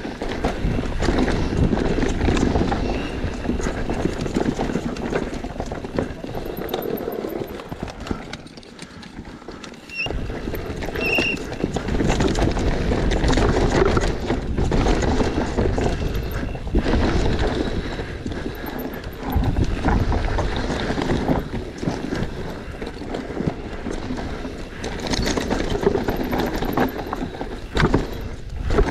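Cube TWO15 downhill mountain bike descending a dry, dusty dirt track at speed: tyres running over dirt and stones and the bike rattling over the bumps. The noise drops away for about two seconds around eight seconds in, with a few short high squeaks.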